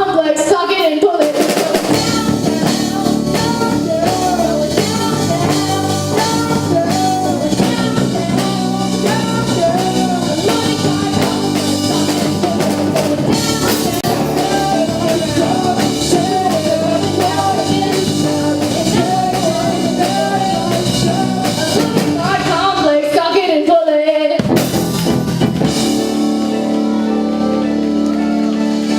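Live rock band playing, with sung vocals over drum kit, guitar and bass. Near the end the band drops out briefly, then comes back on held chords.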